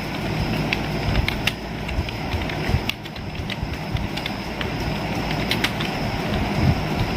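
Keys of an Intex Corona Pro USB keyboard clicking irregularly as someone types, a few keystrokes a second, over a steady low hum.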